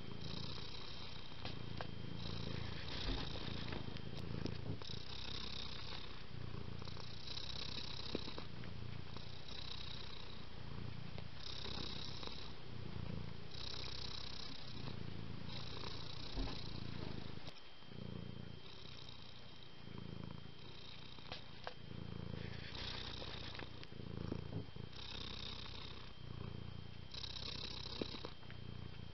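Domestic tabby cat purring close to the microphone: a continuous low rumble that swells and eases about every two seconds with the cat's breathing. The purr gets a little quieter about two-thirds of the way through.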